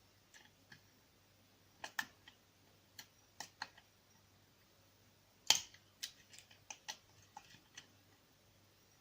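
Light, irregular metal clicks and taps of a hook pick and tension wrench working the pins of a small CISA oval cylinder lock, with one louder click about five and a half seconds in.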